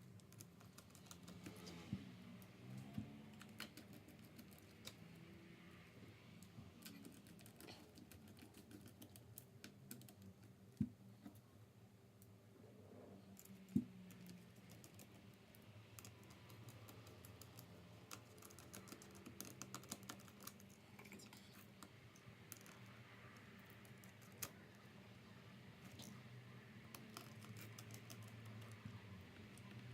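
Faint, irregular small clicks and taps of tools and small parts on a MacBook Pro being worked on, with two sharper clicks about eleven and fourteen seconds in, over a low steady hum.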